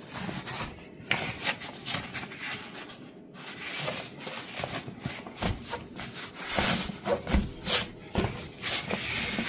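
Padded fabric seat of a double folding camping chair being handled by hand, rubbing and rustling, with a few dull thumps in the second half.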